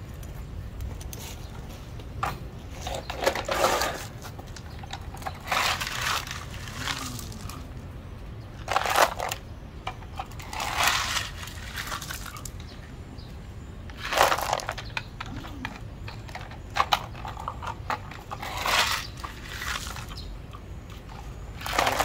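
Small gravel stones being scraped up by a red plastic toy bulldozer's blade and tipped into a plastic toy dump truck's bed. They rattle and crunch in repeated short bursts every two to three seconds.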